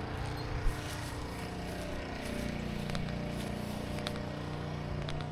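Gas engine of a pressure-washing rig running steadily at low speed, a constant engine hum with a brief swell in the middle.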